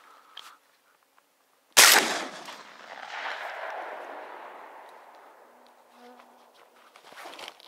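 A single shotgun shot about two seconds in, fired at ducks in evening flight, followed by its echo rolling away and fading over about three seconds.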